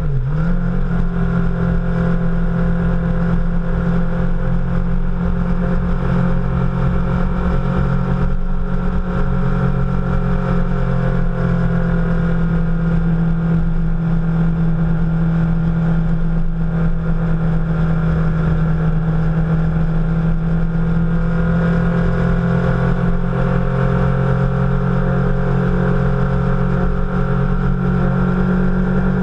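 Motorcycle engine running at a steady cruise, heard from a helmet-mounted camera with wind rumbling on the microphone. The engine note drops right at the start, then holds steady and rises a little over the last several seconds.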